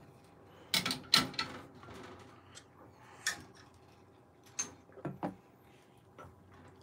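A few scattered clicks and knocks of objects being handled, over a faint steady hum.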